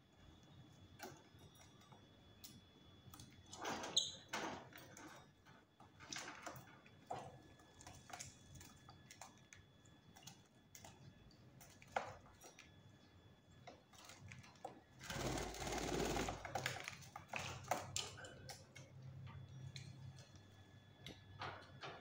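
Fischer's lovebirds moving about a wire cage: quiet, scattered clicks and taps of claws and beaks on the bars and perches, with a louder burst of rustling about fifteen seconds in.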